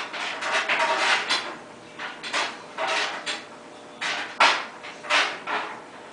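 Dishes and cutlery clinking and knocking against a dishwasher rack as it is loaded, in irregular clatters with a cluster at the start and the sharpest knock about four and a half seconds in.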